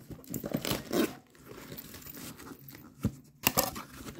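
Tape being torn off a cardboard box in several short ripping bursts as the flap is pried open, with crinkling and scraping between them and a sharp knock about three seconds in.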